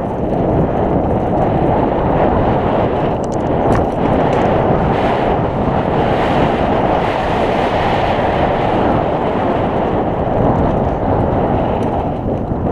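Wind buffeting the microphone of a mountain bike's point-of-view camera during a fast downhill run on a dirt trail, mixed with the rumble of the tyres and rattle over the ground. A few light clicks come about three to four seconds in.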